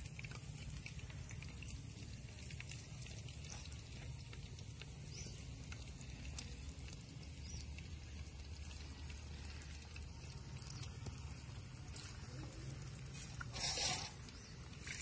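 Faint outdoor background noise: a steady low rumble with scattered light ticks, and one short, louder burst of noise near the end.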